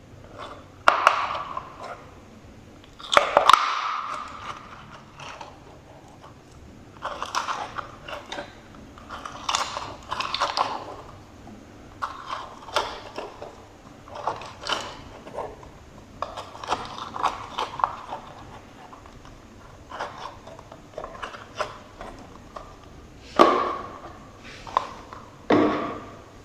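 Slime being squeezed and pressed by hand, giving irregular bursts of sticky clicks, crackles and pops, with louder ones about a second in, around three and a half seconds in, and twice near the end.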